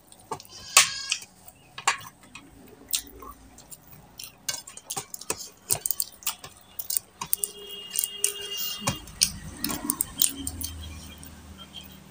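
Fingers mixing rice and curry on a stainless steel plate: an irregular string of sharp clicks and taps as the hand scrapes the metal. A short ringing note comes from the plate about two-thirds of the way through.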